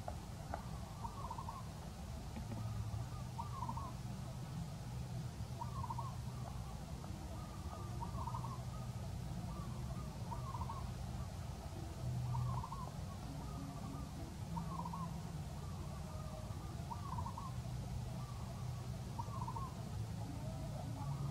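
A bird calling a short, quick note over and over, about once every two seconds, with a low steady hum underneath.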